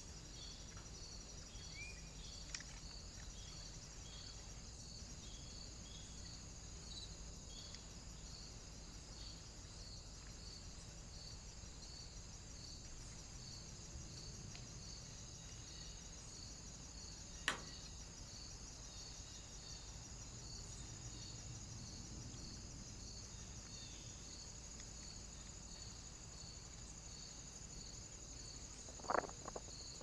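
Insects chirping steadily in a regular, high-pitched rhythm of about one and a half chirps a second. A few sharp clicks break through, one very short, loud one about two thirds of the way in and a quick cluster near the end.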